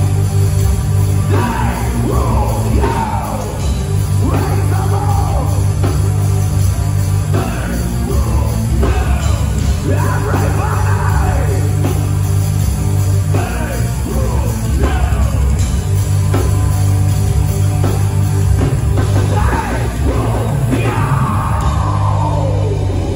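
Heavy metal band playing live and loud: distorted electric guitars, bass and drums, with vocals over them.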